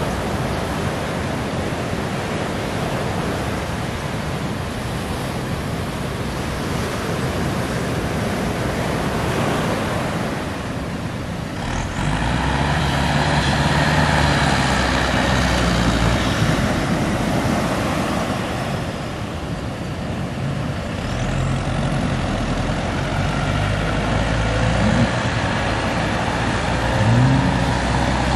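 Surf washing in over the first twelve seconds. Then engines run steadily with a low drone as the ski boat is pushed into the waves. Near the end its twin outboard motors rev up several times in rising pitch as it powers out through the surf.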